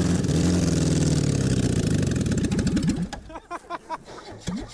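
Car engine with a deliberately cut-away, unbalanced flywheel running, its speed rising a little and then sagging until it stalls about three seconds in, followed by a few irregular knocks.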